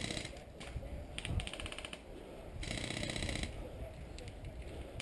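Airsoft electric guns firing full-auto: two bursts of rapid, even clicking, each just under a second long, with a short gap between them.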